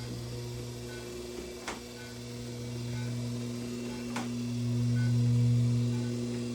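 Steady electrical hum of a Class IV therapy laser unit running during treatment. The hum swells louder about two-thirds of the way through, with a faint short high beep about once a second and a sharp click about every two and a half seconds.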